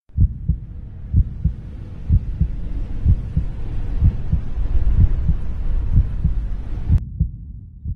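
Wind buffeting the microphone: a low rumble with irregular thuds and a faint hiss over it. The hiss cuts off about seven seconds in, leaving a weaker rumble.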